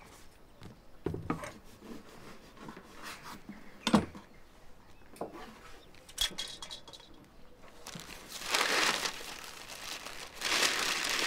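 Paper crinkling in two spells near the end, after a few light knocks and clicks of handling.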